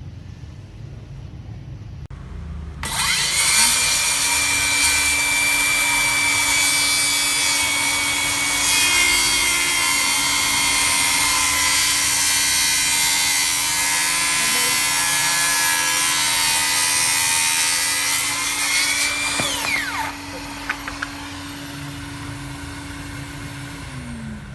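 Makita DHS783 cordless circular saw cutting wood while a Makita DVC864LZ cordless vacuum extracts the dust. The saw starts about three seconds in, whines steadily through a long cut, then its pitch falls as the blade spins down. The vacuum's steady hum runs on a few seconds longer and then stops.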